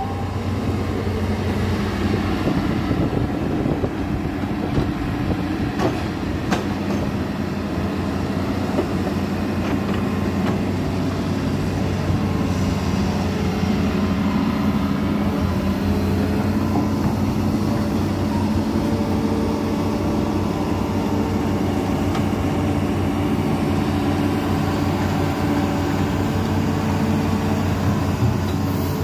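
Hitachi Zaxis 210F amphibious excavator's diesel engine running steadily while the machine works, with an occasional knock.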